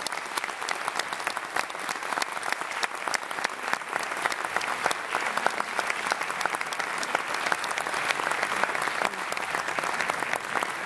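Concert audience applauding: dense, steady clapping that carries on throughout.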